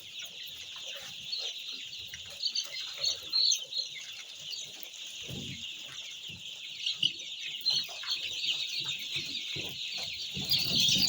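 A flock of week-old chicks peeping continuously in a dense, high-pitched chorus, with soft low knocks now and then.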